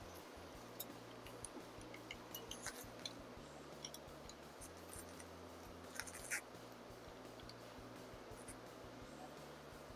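Faint, scattered small metallic clicks and taps of a hand tool working the front fork's pinch bolts as they are tightened, with a slightly louder cluster about six seconds in, over a low steady hum.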